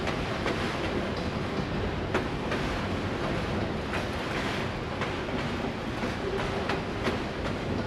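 Freight train of auto-rack cars rolling slowly past at about 10 mph, a steady rumble of wheels on rail broken by irregular sharp clicks as wheels cross joints in the track.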